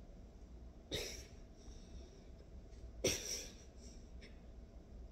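A boy's sharp breaths of effort while he lifts a dumbbell overhead: two short puffs, about a second in and about three seconds in, the second louder.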